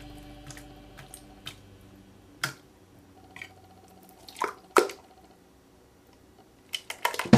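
Blue glitter slime squelching and popping as hands squeeze it and press it into a clear plastic cup: a few sharp wet clicks, the loudest about two and a half seconds in and twice more between four and five seconds in. Background music fades out at the start and comes back with drums at the very end.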